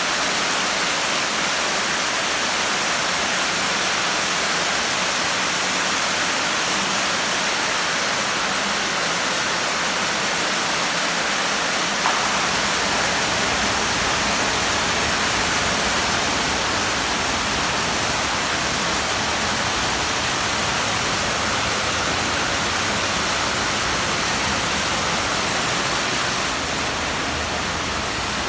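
Steady, loud rush of water from a swimming pool's water feature pouring and splashing into the pool, with one short click near the middle.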